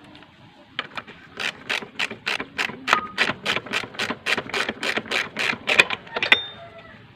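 Hand ratchet wrench clicking in a quick, even rhythm of about four clicks a second for about five seconds, starting about a second in: the nut is being run on during CVT reassembly, not yet torqued down.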